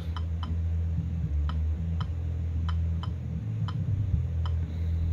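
Faint short ticks at uneven spacing, roughly two a second, over a steady low hum.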